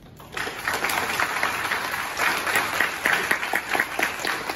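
Audience applauding, breaking out sharply a moment in and keeping on steadily.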